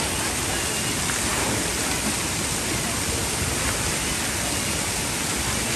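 Steady rush of water pouring and spraying from splash-pad fountains into a shallow pool.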